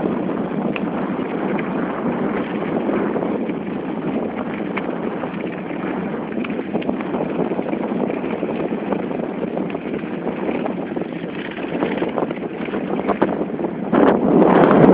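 Steady rushing noise of travel over a packed-snow road, with small irregular crunches and clicks, and wind on the microphone. The wind noise grows louder near the end.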